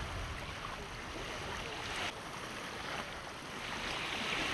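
Steady outdoor noise of sea water and wind, changing abruptly about two seconds in and again a second later.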